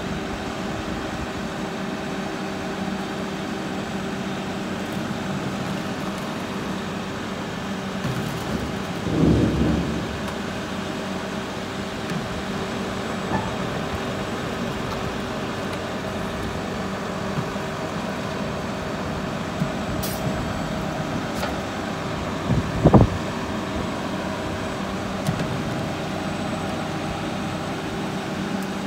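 Front-loading garbage truck's diesel engine idling steadily, with a dull thump about nine seconds in and a sharp bang about 23 seconds in.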